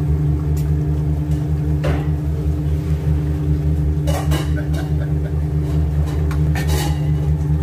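Steady low machine hum, as of a motor or fan running, unchanging throughout, with a few faint clicks.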